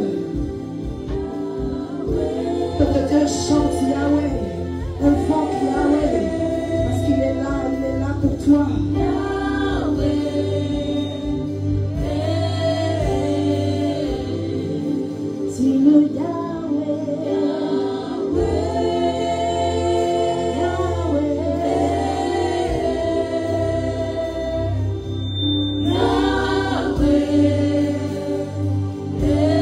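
Women's worship team singing a gospel worship song into microphones, several voices together, over steady held backing chords and bass.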